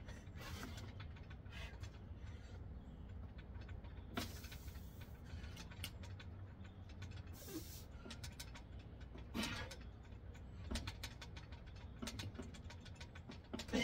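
Bodyweight dips on a steel dip station: small creaks and clicks from the station as the reps go, and a few sharp breaths, over a low steady rumble.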